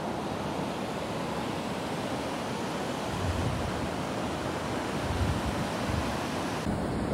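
A steady rushing noise, with a few low gusts now and then.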